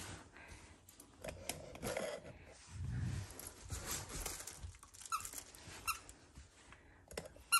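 Shiba Inu rooting in and tugging at a cloth treat pouch: fabric rustling and snuffling, with a short low growl about three seconds in.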